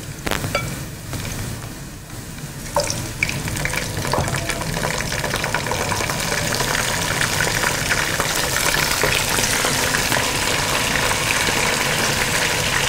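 Sliced onions frying in hot oil in a pan, with pieces of boiled mutton added; a few knocks early on, then the sizzling grows louder about three seconds in and stays steady.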